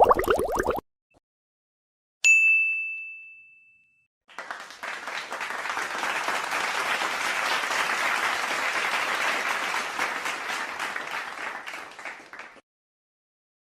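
A single bright 'ting' chime struck once, its clear tone fading away over about two seconds. After a short silence, a group applauding for about eight seconds, then stopping.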